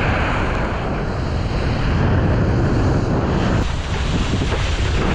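Wind buffeting the microphone of a wakeboarder's head-mounted camera, over the rushing hiss of water spraying off the wakeboard as it is towed across the lake.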